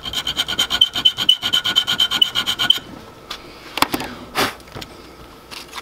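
A homemade nut-slot saw, a 0.025-inch steel feeler gauge with teeth filed into it, sawing a slot into scrap MDF with quick, short back-and-forth strokes while the thin steel blade rings with a steady high tone. The sawing stops about three seconds in, followed by two brief knocks.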